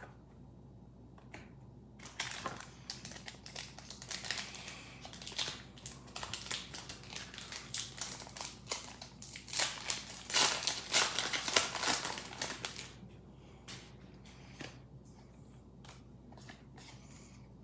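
Foil Pokémon booster pack wrapper crinkling and tearing as it is pulled open by hand. The noise runs from about two seconds in and is loudest near the middle. It dies down after that to a few faint clicks as the cards are handled.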